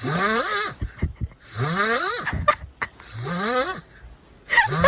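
Loud snoring: four breathy snores about a second and a half apart, each with a tone that rises in pitch.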